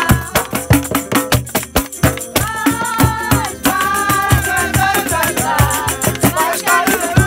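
A small ukulele-sized acoustic instrument strummed in a quick, steady rhythm while people sing along, holding long notes in the middle.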